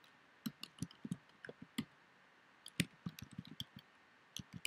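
Computer keyboard keys being tapped, typing a few words in two quick runs of keystrokes with a short pause about two seconds in.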